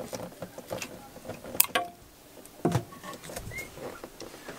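Rusty exhaust elbow being worked free of a Volvo Penta three-cylinder diesel and lifted out by hand. Scattered metal clinks and knocks: a sharp clink with a short ring a little over a second and a half in, and a duller knock near the three-second mark.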